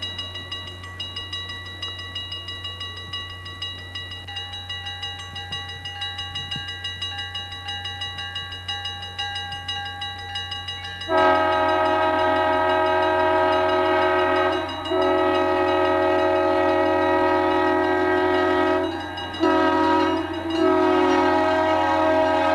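A bell ringing rapidly for about the first half, then an EMD GP9 diesel locomotive's air horn sounding the grade-crossing signal: two long blasts, a short one, and a long one.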